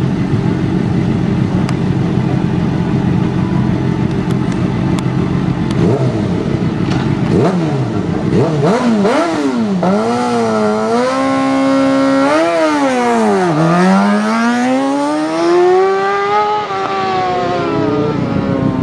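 Suzuki racing motorcycle engine running at the start line, then revving hard as it launches, the pitch climbing and dropping sharply with each quick upshift. Later a long rise in revs, then a falling pitch as the bike goes by.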